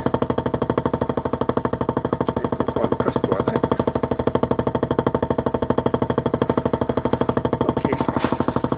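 An old hard drive's voice-coil actuator buzzing steadily as an amplified sawtooth signal drives it back and forth to vibrate a laser-scanning mirror. The buzz pulses quickly and evenly, many times a second.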